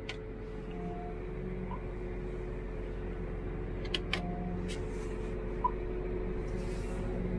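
John Deere tractor engine running steadily, heard from inside the cab and slowly getting louder. Armrest control buttons click near the start and about four seconds in, and the console gives two short beeps.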